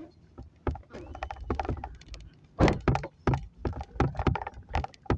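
Irregular knocks and clunks of objects being handled, the loudest about two and a half seconds in.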